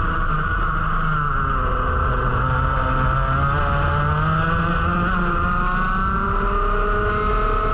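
Onboard sound of a racing kart's Rotax Max 125cc single-cylinder two-stroke engine at speed: the revs ease off through a corner, then climb steadily as the kart accelerates out onto the straight.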